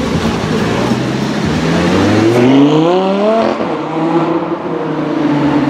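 Lamborghini Gallardo V10 engine accelerating hard away from a standstill: the note rises for about two seconds, drops sharply at an upshift about halfway through, then carries on at a steadier pitch as the car drives away.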